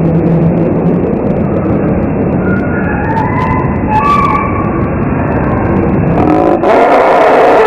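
Scarlet macaw screams slowed down into a deep, drawn-out roar with sliding pitch. About seven seconds in, a louder, denser scream layer comes in.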